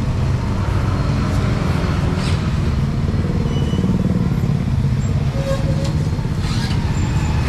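Street traffic: motorbike and car engines running close by, a steady low rumble.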